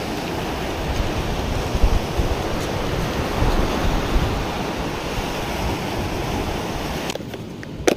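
Surf breaking and washing on a shingle beach, with wind gusting on the microphone. The sound drops away suddenly about seven seconds in.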